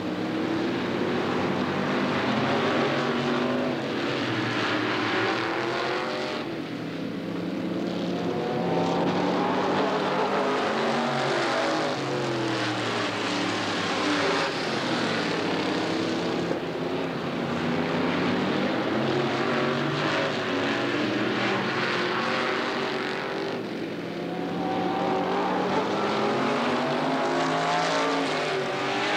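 Engines of a pack of modified stock cars racing around an oval, many engine notes rising and falling as the cars pass. The sound drops briefly twice, about seven seconds in and again near twenty-four seconds, as the pack goes to the far side of the track.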